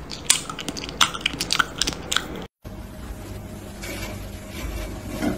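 A cat chewing and biting raw meat, a quick irregular run of wet crunching bites for about two and a half seconds that cuts off abruptly. After that comes only a quieter steady background hum.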